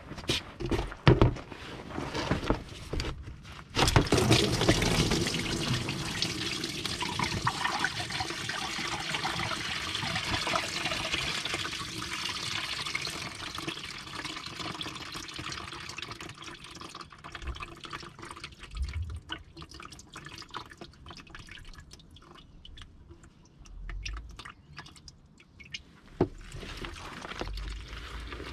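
Engine coolant draining from a radiator hose into a container: a few knocks at first, then about four seconds in the liquid suddenly gushes out in a loud stream that slowly dies down to a quieter trickle.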